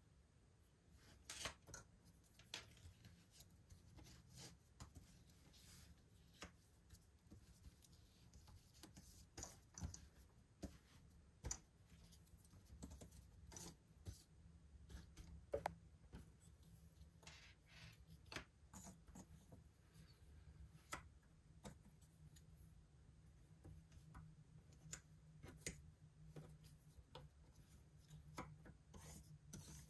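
Faint, irregular clicks and taps of cardboard jigsaw puzzle pieces being handled and set down, over a faint low hum.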